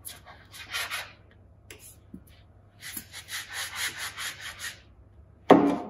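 Upturned drinking glass used as a scone cutter, pressed and twisted through soft scone dough against a floured silicone mat: two spells of scratchy rubbing, the second a quick rhythmic scrubbing. A short thump near the end.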